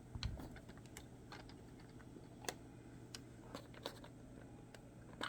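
Faint, scattered small plastic clicks and taps from handling a Blink Outdoor camera as its battery cover is taken off, with a few sharper clicks in the middle and near the end.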